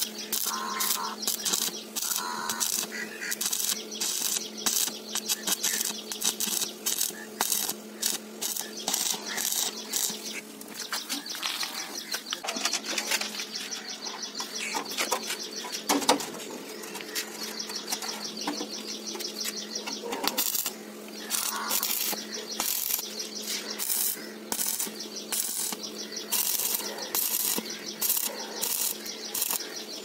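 Stick (arc) welding on the steel shell of a concrete mixer drum: the arc crackles and sputters, stopping and restarting several times as beads are laid along the patch seams, over a steady low hum.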